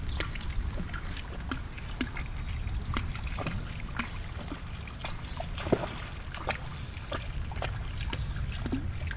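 Water sloshing and splashing in irregular small bursts as a dog moves through shallow flood water, with one sharper splash about six seconds in, over a steady low rumble.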